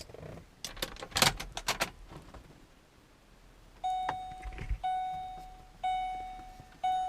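Keys jingling and clicking as a key goes into the ignition. About four seconds in, a vehicle's dashboard warning chime starts, a clear ding repeating about once a second.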